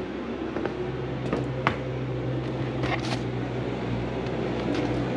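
A steady low machine hum, with a few short clicks and knocks in the first half from things being handled.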